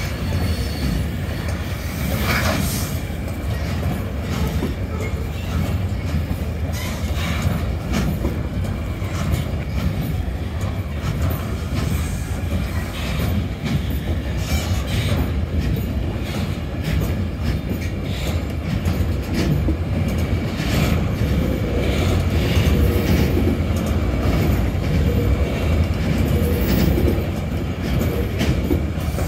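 Freight train of enclosed double-deck car-carrier wagons rolling past at a level crossing: a steady low rumble of wheels on rail with repeated clacks as the wheelsets pass.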